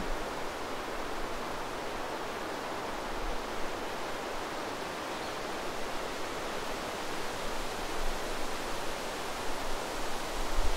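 Steady wind noise, an even rushing hiss, with low buffeting rumbles of wind on the microphone near the start and again near the end.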